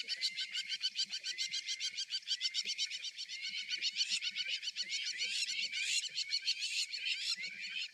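Bird song: a fast, steady run of high chirps, about eight a second, with rising whistled notes underneath.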